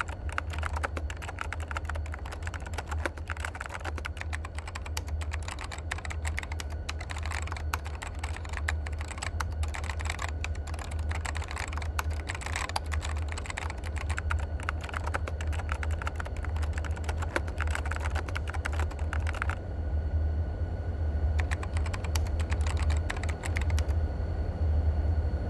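Rapid typing on a keyboard: a dense stream of key clicks that breaks off, comes back for a short run, and stops near the end, over a steady low hum.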